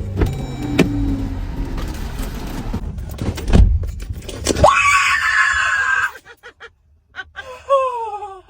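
A person screaming in fright: a sudden loud, high scream starts about halfway through, just after a thump, and lasts over a second. After a short hush, a shorter cry falls in pitch near the end.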